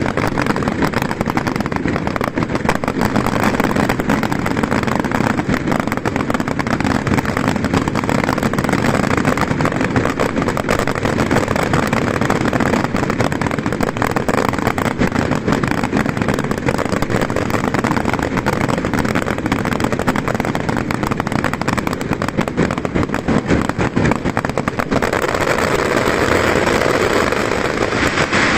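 Castillo aerial fireworks display at full intensity: a dense barrage of shell bursts and crackle, so many reports that they merge into one continuous din.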